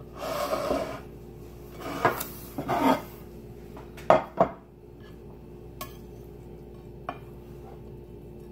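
Utensils scraping and clinking against a baking pan and plate as a slice of meatloaf is cut and lifted out: several scraping strokes in the first three seconds, two sharp clinks about four seconds in, then a couple of light taps.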